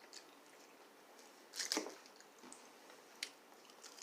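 Close-up eating sounds of a crunchy salad topped with pepitas and sunflower seeds: a few scattered crackly chews and crunches, the loudest a short cluster a little under two seconds in.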